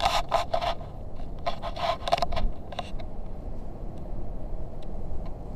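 Handling noise from a camera pole: short scraping and rubbing in two bunches over the first two and a half seconds, then a steady low wind rumble on the microphone.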